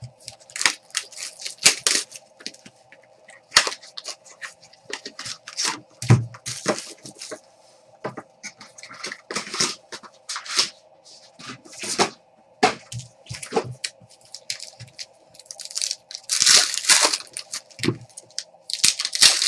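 Plastic wrappers of Panini Select basketball card packs crinkling and tearing open as the packs and cards are handled, in sharp irregular crackles. A faint steady hum sits underneath.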